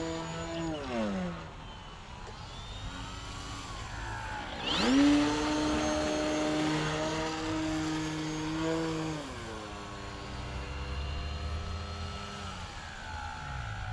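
Electric motor and propeller of a Flex Innovations Mamba 10 RC aerobatic plane whining with the throttle: the pitch drops about a second in, jumps sharply up about five seconds in and holds steady, then drops again about nine seconds in and once more near the end.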